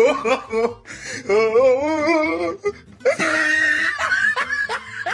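Several people laughing hard, first one long wavering laugh and then a fast run of repeated laughing bursts from about three seconds in, with a single spoken word in between.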